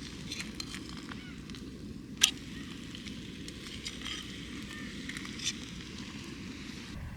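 Wood fire crackling, with scattered sharp pops and one louder snap about two seconds in, over a steady low rumble.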